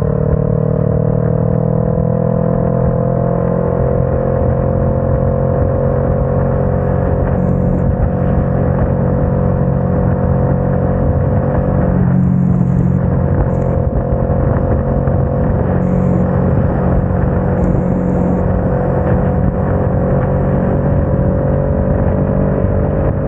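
Motorcycle engine running at highway speed under wind and wet-road noise, its note climbing slowly as the bike gains speed, with a brief break in the note about halfway through.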